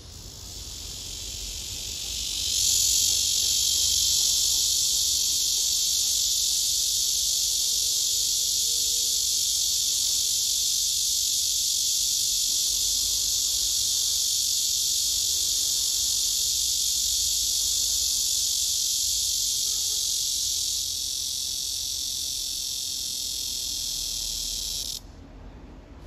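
Male cicada singing: one long, steady, high buzz that swells up over the first couple of seconds, eases slightly near the end and then cuts off suddenly.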